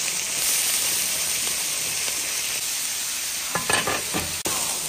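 Shredded cabbage and pork sizzling in hot oil in a large wok, with a few quick scrapes and clatters of the spatula against the wok about three and a half seconds in, the last a sharp click.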